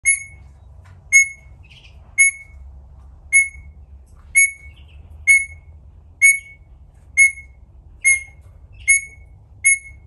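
A rosella whistling one short, sharp note over and over, about once a second, the notes coming a little faster near the end.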